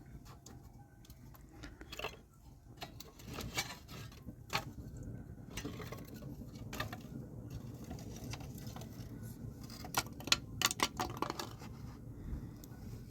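Scattered light clicks and taps, like small hard objects being handled, over a low steady rumble, with a quick run of louder clicks about ten seconds in.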